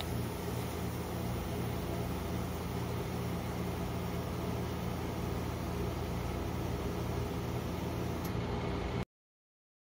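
Steady hum and hiss of a rolled-ice-cream machine's refrigerated cold plate running, its compressor and fan going, stopping suddenly near the end.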